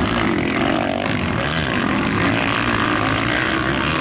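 Several 250cc motocross bikes racing, their engines revving up and down over one another in a steady, overlapping mix.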